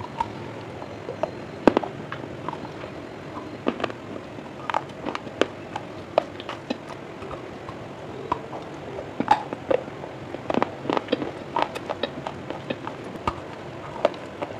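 Baked clay pipe being bitten and chewed close to the microphone: irregular sharp crunches and snaps, sometimes several in quick succession, over a steady hiss.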